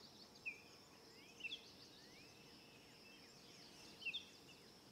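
Faint birdsong: scattered short chirps and brief whistled notes over a steady faint high hiss.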